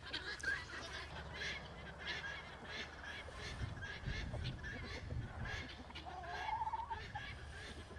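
A flock of guinea fowl calling faintly, a steady run of short, sharp chattering calls, with one longer pitched call about six seconds in.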